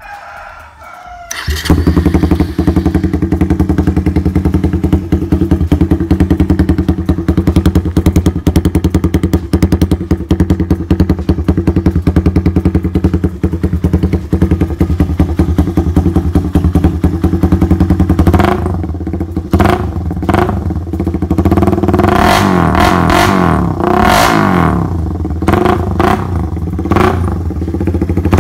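Suzuki Raider 150 carb's single-cylinder engine running loud through a Daeng Sai4 open exhaust pipe. It comes in about a second and a half in, idles with a fast, even beat, then is blipped with short revs several times in the last third.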